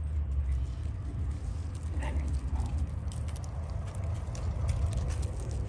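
Dogs moving about on a wood-chip ground, with scattered crunches and clicks, more of them in the second half, over a steady low rumble.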